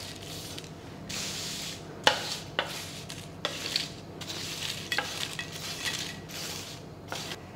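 Crisp, oven-baked phyllo pastry squares being put into small ramekins: dry rustling and crackling that comes in spells, with a few sharp clinks against the dishes.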